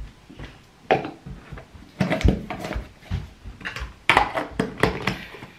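Plastic hair-product containers knocking and clicking as they are picked up and handled at a bathroom vanity, a run of sharp taps and clatters, thickest about two seconds in and again near the end.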